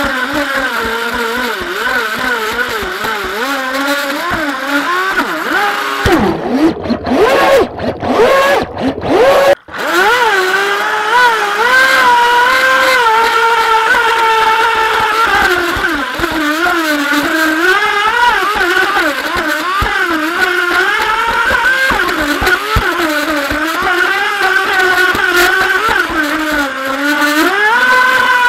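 Feilun FT011 RC boat's brushless electric motor whining under throttle, its pitch wavering up and down, over water rushing past the hull. About six to ten seconds in comes a rougher stretch of splashing with a few sudden short cut-outs.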